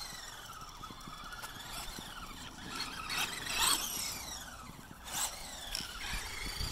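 An RC buggy's 15-turn brushed electric motor and gearbox whining, the pitch rising and falling as the buggy speeds up and slows down, with a few short harsher bursts partway through.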